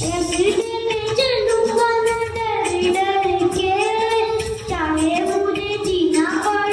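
A child singing solo into a handheld microphone, holding long notes.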